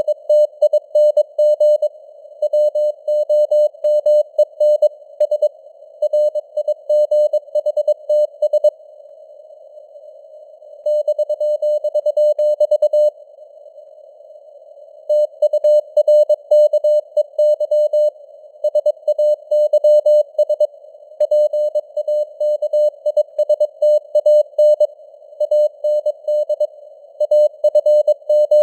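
Morse code (CW) sent at 22 words per minute: a single steady tone keyed rapidly into dots and dashes over a narrow band of simulated receiver hiss, with the signal strength varying (QSB). Twice the keying pauses and only the hiss is heard.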